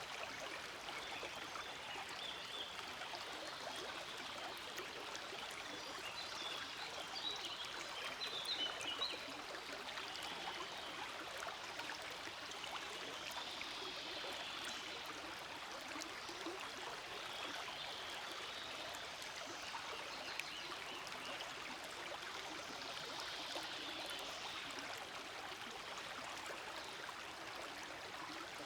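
Forest stream flowing, a steady babble of running water, a little louder for a moment around eight seconds in.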